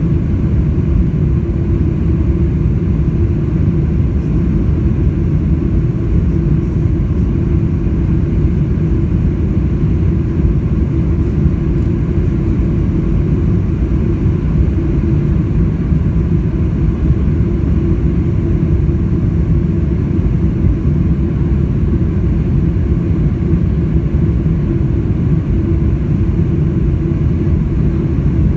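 Cabin noise of a Boeing 747-400 airliner heard from a rear window seat: a steady, loud low rumble of engines and airflow, holding even throughout.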